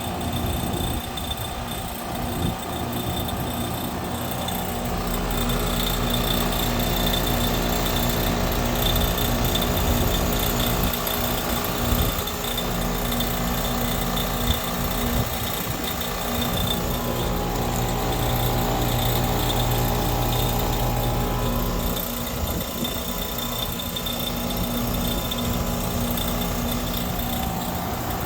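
Goodman 5-ton heat pump running with a steady hum and an irregular rattling, clicking noise, which the owner thinks comes from the compressor and not the fan.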